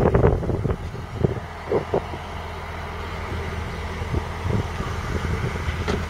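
Deutz-Fahr 5660-HTS combine harvester's 6.1-litre six-cylinder diesel running with a steady low drone and a faint high whine, a few light knocks over it. A loud rush of noise at the start dies away within the first second.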